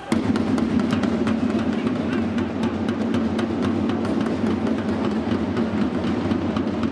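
Stadium crowd of supporters clapping, with a drum beat underneath; it sets in suddenly at full loudness and holds steady.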